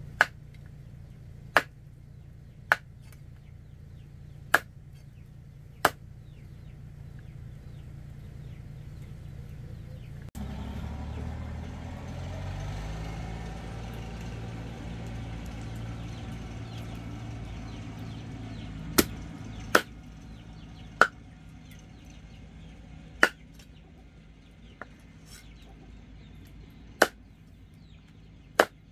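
Single chopping strokes with a blade, sharp and at irregular intervals about one to two seconds apart, stopping for a long stretch in the middle. A low hum comes in suddenly about a third of the way in and fades out before the chopping resumes.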